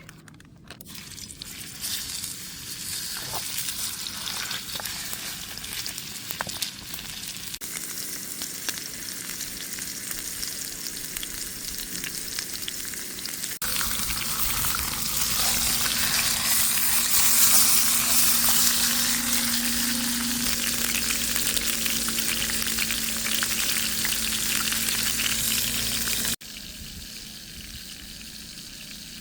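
Pork sizzling as it fries in a pan, a steady hiss with fine crackle. The sizzle jumps louder about halfway through and drops off abruptly near the end.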